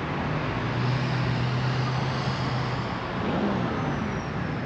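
Car engine running with a steady low hum over street traffic noise, with a brief shift in pitch about three seconds in.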